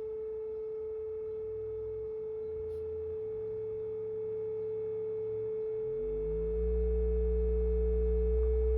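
Synthesized sine-wave tone for an oscilloscope circle, held steady in pitch, over a lower tone from the square-wave signal being raised in frequency. The lower tone glides up about six seconds in and then gets louder.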